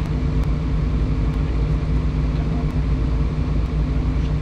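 Kobelco 350 excavator's diesel engine idling steadily, with no hammer blows.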